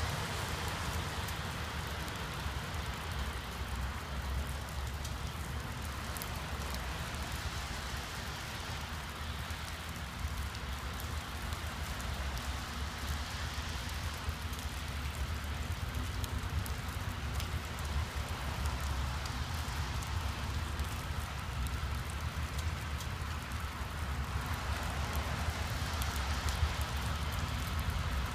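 Steady rain falling, over a low rumble that grows a little louder near the end from an approaching freight train led by GE C44-9W diesel locomotives.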